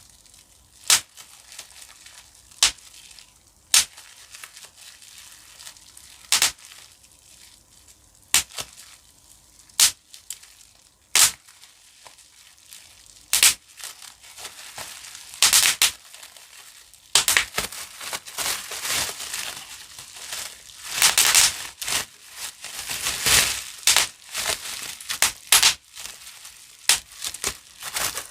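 Plastic bubble wrap being popped: single sharp pops a second or two apart, then from about two-thirds through, quicker pops mixed with the crinkling of the plastic being squeezed.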